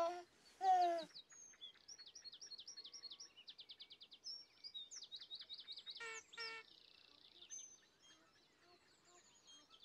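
A baby's short giggle near the start, then songbirds chirping and trilling, with a rapid run of chirps about three seconds in and two louder calls a little after six seconds.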